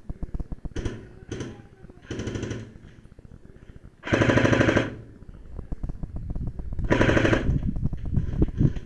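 Airsoft gun firing in fully automatic bursts, the longest and loudest lasting just under a second about four seconds in, another near seven seconds and shorter ones earlier, over a quick steady patter of footsteps.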